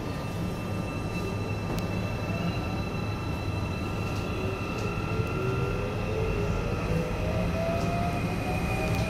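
Korean-built Cairo Metro Line 1 train running, heard from inside the car: a steady low rumble with a constant high whine. From about four seconds in, the traction motors add a whine that rises in pitch as the train speeds up.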